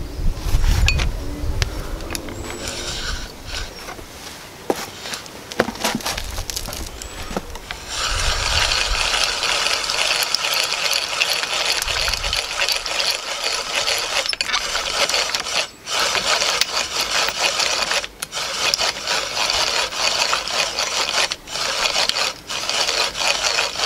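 Hand-cranked eggbeater drill spinning a pithy elder spindle into a wooden hearth board for a friction fire, the spindle tip grinding on the wood with a steady rasping. The rasping starts about a third of the way in, after a few knocks and clicks of setting up, and is broken by short pauses now and then.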